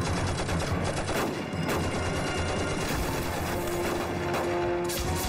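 Battle gunfire in a war drama: a string of irregular gunshots from pistols and rifles, with a film score held underneath.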